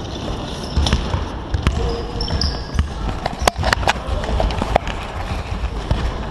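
Basketballs bouncing on a sports-hall floor during a basketball warmup, with irregular thumps and a few sharper knocks about halfway through.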